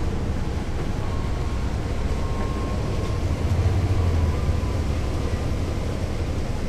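Caterpillar C13 diesel engine of a NABI 40-ft transit bus running, heard on board from the rear seats, with a deep steady drone that swells briefly about halfway through.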